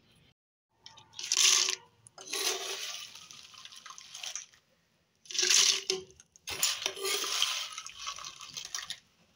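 Oil-fried dried red chillies and their oil being tipped and scraped from a pan into a plastic blender jug, in four crackling, rustling pours with short pauses between them.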